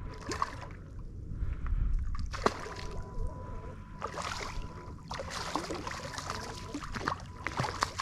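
Hooked redfish thrashing at the surface beside a kayak: irregular splashes, with water sloshing against the hull.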